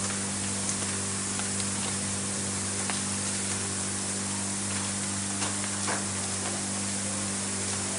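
Steady hiss of a fire hose's water jet spraying, over a steady low hum, with a few faint ticks.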